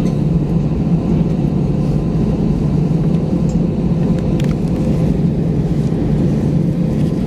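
Steady low rumble of a vehicle running, heard from inside it, with a faint steady hum above the rumble.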